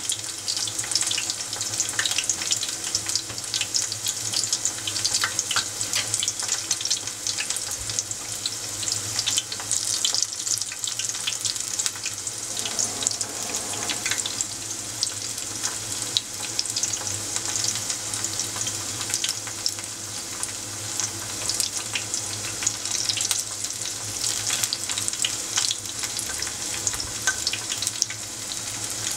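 Battered vegetable tempura (eggplant, fern fiddleheads and angelica-tree buds) deep-frying in a pot of oil: a steady high sizzle thick with crackles. The sizzle has not died down, the sign that the tempura is not yet ready to lift out.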